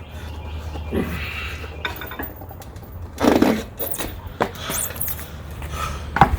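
A steel tire-iron clinking and scraping against a motorcycle wheel rim and the tire changer as the tire's inner bead is pried off, with a louder scrape about three seconds in and a sharp clink near the end.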